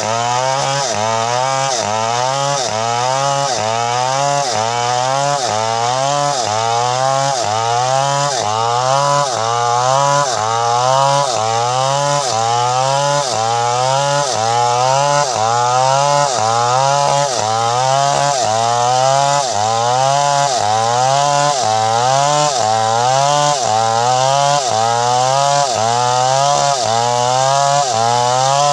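Two-stroke chainsaw engine running without a break, its pitch sweeping up and dropping back in a steady rhythm about once every three-quarters of a second.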